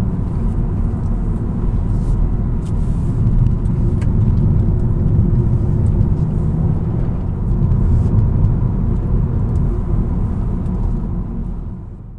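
Car driving along a road, heard from a camera mounted low on its side: a steady low rumble of engine, tyre and wind noise, with the engine turning around 2,300 to 2,500 rpm. It fades out near the end.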